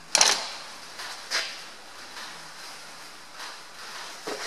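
Workshop handling noise as tools are put down on the bench: a loud, short clatter just after the start and a smaller one about a second later, then a few light knocks near the end.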